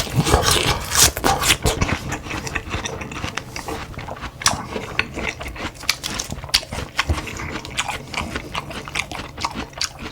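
Close-miked mukbang eating: chewing and mouth sounds, with many short irregular clicks and smacks.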